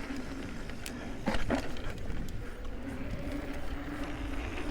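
Mountain bike rolling down a dirt trail: a steady rumble of tyre and wind noise, with a few sharp knocks and rattles from the bike about a second in.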